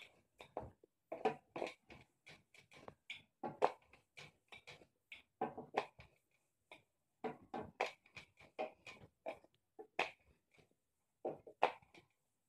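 Wooden rolling pin rolled back and forth over roti dough on a plastic cutting board, giving a quick, irregular run of short knocks and rubbing strokes, several a second.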